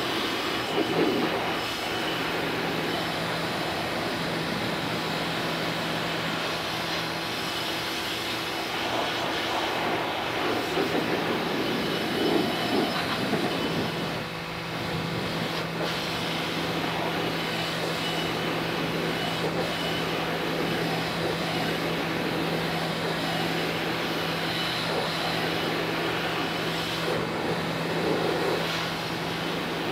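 SunJoe SPX-9009-PRO electric pressure washer running, its motor and pump giving a steady hum under the noise of the water jet spraying a metal kitchen-hood baffle filter. The level dips briefly about halfway through.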